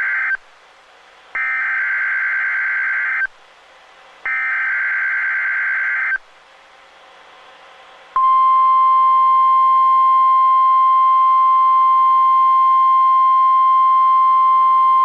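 Emergency Alert System SAME header on NOAA Weather Radio: the end of one data burst, then two more screeching digital bursts of about two seconds each, a second apart. About eight seconds in, the steady 1050 Hz Weather Radio warning alarm tone starts and holds. This is the signal that opens a National Weather Service Tornado Watch message.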